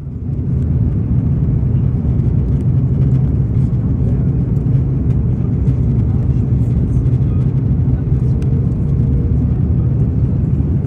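Steady low rumble of airliner cabin noise inside a Lufthansa Airbus A330-300, the drone of engines and airflow.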